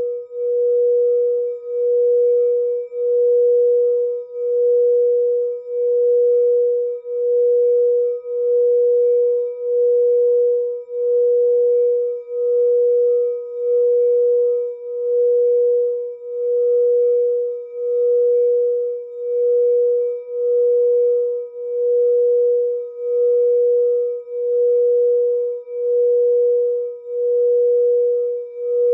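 Frosted quartz crystal singing bowl kept ringing by a mallet circling its rim: one steady, pure tone that swells and dips evenly about once every second and a half. A faint knock is heard about halfway through.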